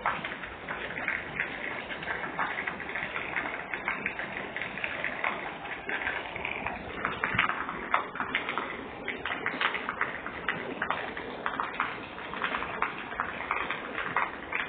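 Rain falling on wet pavement, with a stream of water from a roof spout splashing onto the ground and many small drop and splash taps.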